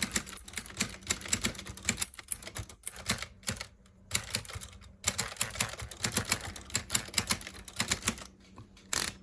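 Remington Noiseless Portable typewriter being typed on quickly: a fast run of quiet key strikes with a couple of short pauses. Its noiseless action lets each type bar ride its momentum to the paper instead of slamming into it, so the strikes are soft.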